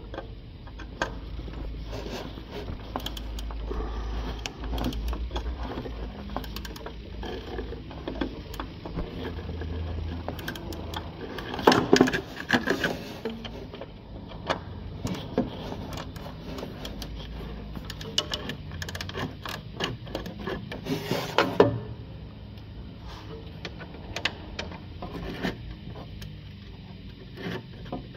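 Hand-tool work on a car's underside: a wrench and fingers on bolts, heat shields and pipes give scattered metallic clicks, scrapes and rattles. There are two louder spells of clatter, one near the middle and another about nine seconds later.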